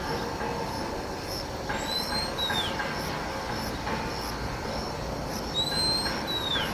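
Oriental magpie-robin calling with food in its bill: two long drawn-out whistles, one about two seconds in and one near the end, each holding high then sliding down at the end. Repeated calling like this while carrying food is typical of a parent near its nest.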